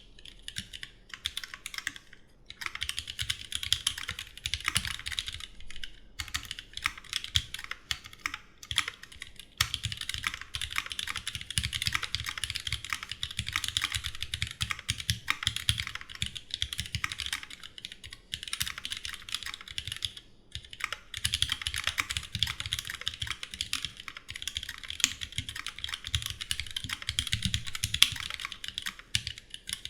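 Continuous fast typing on a Duck Jetfire mechanical keyboard with rebuilt vintage Cherry MX Black linear switches, lubed with Krytox and fitted with films and 63.5 g springs, under GMK keycaps. The keystrokes clack in a dense, even stream, broken by a few brief pauses.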